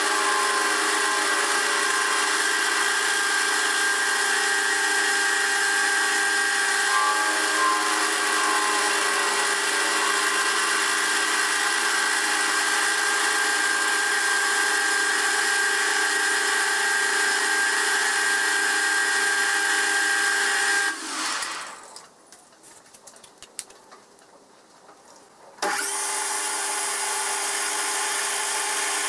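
Metal lathe running and cutting, sped up four times: a steady machine whine of several held tones. About 21 seconds in the sound dies away to a quiet stretch with a single click, then the lathe sound comes back abruptly a few seconds later.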